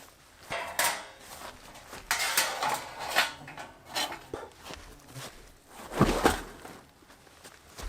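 Camp cookware and utensils clattering and knocking as they are handled, in irregular bursts, with a heavier knock about six seconds in.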